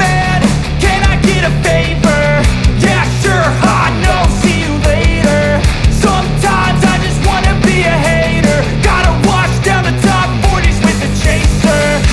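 Rock music with a steady beat, distorted guitars and heavy bass, without vocals.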